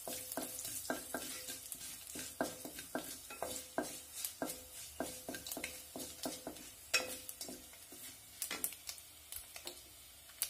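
A wooden spatula stirring a tempering of curry leaves and dried red chillies frying in hot oil in a pot. There is a light sizzle, with frequent irregular clicks and taps of the spatula against the pot.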